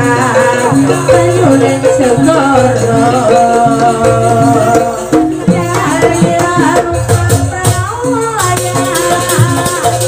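Jaranan gamelan ensemble playing a fast sampak piece: a repeating low drum and gong beat with percussion and a sliding melody line over it.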